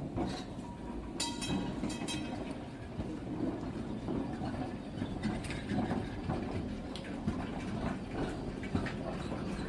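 H0m model tram running along hand-built metre-gauge track, its wheels clicking irregularly over the rails and points, over a steady background noise.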